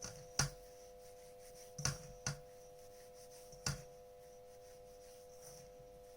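About four short, sharp knocks as a hand works besan and sugar together in a mixing vessel, over a steady background hum.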